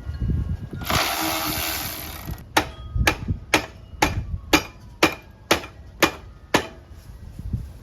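Motorcycle exhaust pipe being struck about nine times, roughly two blows a second, each hit ringing briefly off the metal pipe, to knock the pipe loose from its mount. Before the strikes there is a short hiss lasting about a second and a half.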